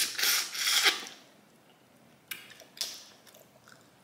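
Wet slurping and sucking at a saucy boiled crawfish for about a second, then two sharp cracks of crawfish shell being broken and peeled by hand.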